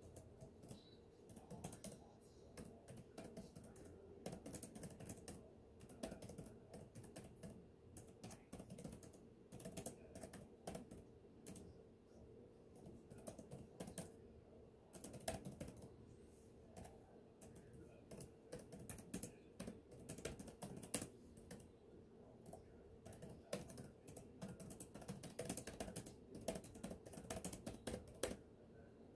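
Quiet typing on a computer keyboard: runs of rapid key clicks broken by short pauses.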